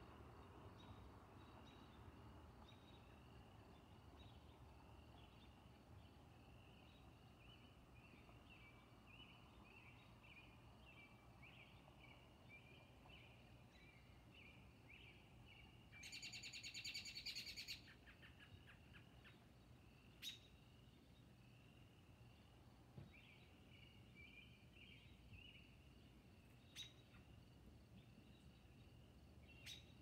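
Faint spring-night animal chorus: short, high calls repeated steadily, with one louder rapid trill lasting about two seconds near the middle and a few sharp clicks later on.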